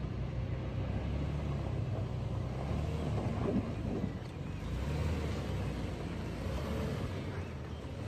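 An off-road SUV's engine running steadily under load as it climbs a steep dirt slope, a low rumble.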